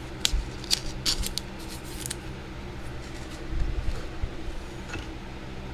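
Trading cards being handled: a quick run of crisp clicks and snips in the first two seconds, then a few soft knocks, over a steady low hum.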